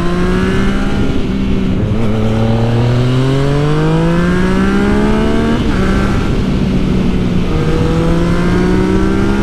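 Yamaha MT-09's inline-three engine through a LeoVince full carbon exhaust system with its dB killer still fitted, pulling hard under acceleration. The pitch climbs, drops sharply about two seconds in and again just before six seconds as it shifts up, then holds nearly steady.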